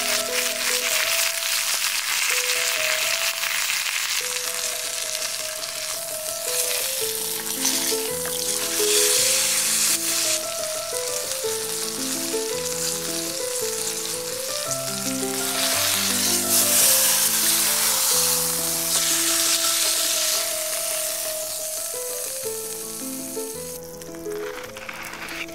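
A thick porterhouse steak sizzling in hot oil in a cast-iron skillet, a dense steady hiss that drops away near the end. Background music with melodic notes plays under it from about six seconds in.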